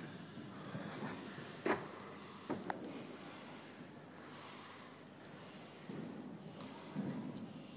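Show-jumping horse cantering over fences on an arena's sand footing: soft hoof thuds and breathy puffs, with two sharp knocks about one and a half and two and a half seconds in.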